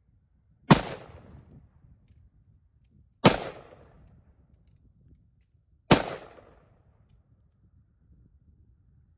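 Three single rifle shots about two and a half seconds apart, each followed by an echo that dies away over about a second.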